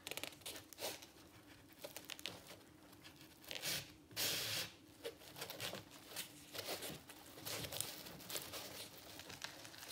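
Rope being pulled tight through a fishing magnet's eye to take up the slack in the knot: irregular rubbing and rustling of rope and nylon bag fabric with small clicks, loudest about four seconds in.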